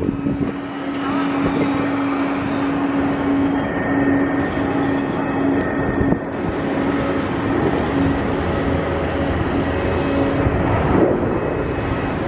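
Pratt & Whitney PW4158 turbofans of an Airbus A300B4-622R freighter running at low taxi power as it rolls slowly on the runway: a steady hum with a thin high whine over even rushing jet noise.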